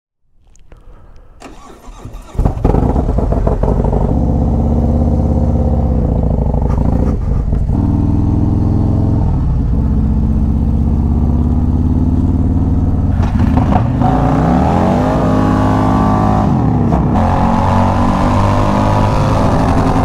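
Harley-Davidson V-twin motorcycle engine starting about two seconds in, then running steadily. Past the middle its revs rise and fall a few times.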